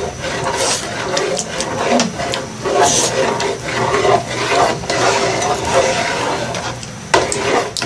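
Long metal spoon stirring thick tomato spaghetti sauce in a large aluminium pot, scraping and clinking against the pot's sides and bottom, with occasional sharp clinks.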